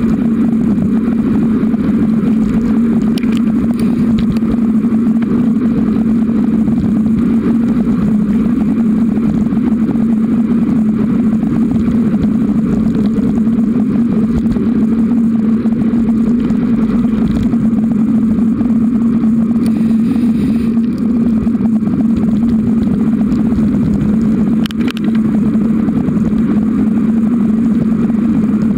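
Steady ride noise of a Giant Roam 2 hybrid bicycle rolling along a paved path: tyre and road rumble with a constant low hum, and a couple of sharp knocks from bumps, one about three seconds in and one late on.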